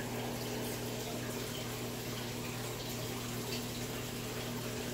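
Steady running water and low hum from a reef aquarium's circulation equipment.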